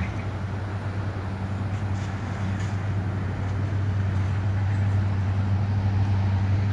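An engine running steadily with a constant low hum, growing slightly louder toward the end.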